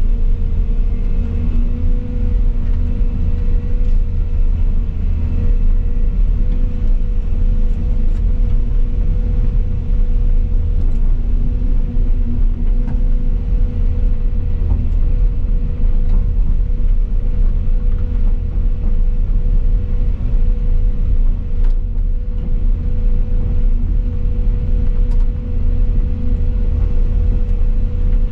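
Volvo EC220 excavator's diesel engine and hydraulics running steadily under work, heard from inside the cab: a constant low rumble with a steady whine over it.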